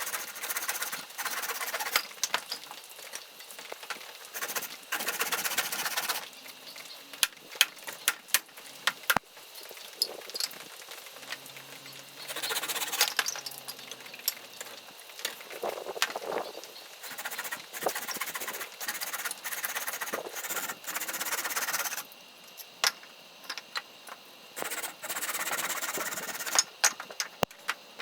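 Hand saw cutting through a dry firewood branch: runs of rasping back-and-forth strokes, broken by pauses and sharp clicks and knocks of wood.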